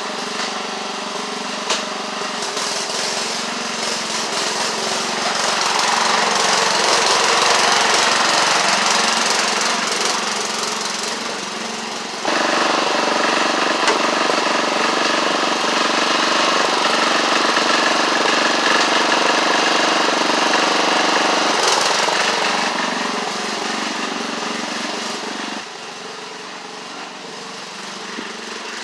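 Craftsman LT1138 lawn tractor engine running under load while dragging a scrap mower, its level swelling and easing as it works. There is a sudden jump in loudness about twelve seconds in and a drop about ten seconds later.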